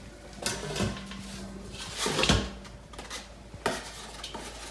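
Plastic wrap and a foam meat tray rustling and clicking as a package of ground beef is unwrapped by hand, with a louder dull knock a little over two seconds in.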